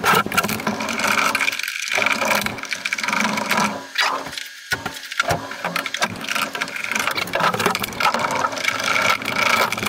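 Phillips screwdriver turning screws in the hard plastic housing of a Mosquito Magnet Patriot Plus, with scraping, clicking and knocks as the housing is turned over and shifted on a table.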